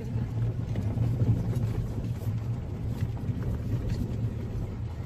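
Steady low engine hum and tyre rumble from inside a vehicle's cabin as it drives slowly over snow-covered lake ice.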